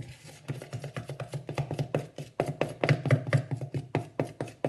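A metal spoon stirring thick icing (icing sugar and water) in a clear plastic mixing bowl: a fast, uneven run of clacks and taps as the spoon strikes the bowl.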